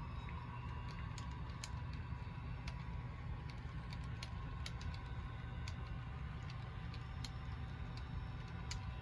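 HO scale model train running on the layout: a steady low hum with irregular sharp clicks, like wheels passing over rail joints and turnouts.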